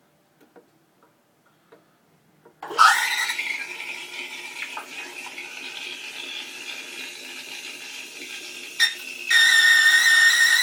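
Rancilio Silvia steam wand frothing milk in a stainless steel pitcher. About two and a half seconds in, the steam comes on with a sudden hiss and runs on as a steady hiss with a whistling tone, then gets louder near the end with a high squeal.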